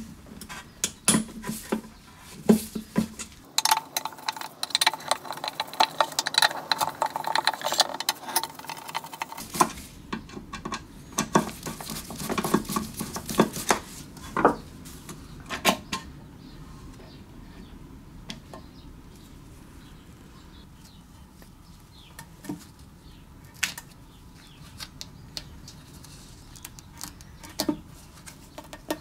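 Small metal parts of Briggs & Stratton carburetors and fuel tanks being handled in a workshop: a run of clinks, clicks and knocks, with a dense stretch of rattling in the first few seconds, then only scattered clicks for the second half.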